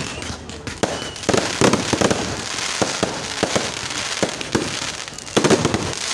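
Fireworks going off: a quick run of sharp bangs and crackles, with a dense cluster about a second and a half in and another near the end.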